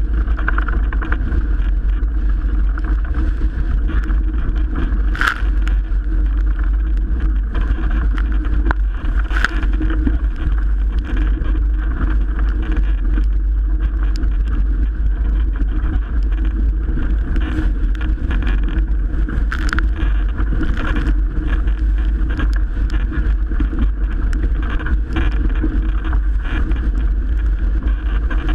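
Strong wind buffeting the microphone over rushing water as a Melges 24 sailboat sails in 30-knot-plus wind, with a few sharp splashes about five, nine and twenty seconds in.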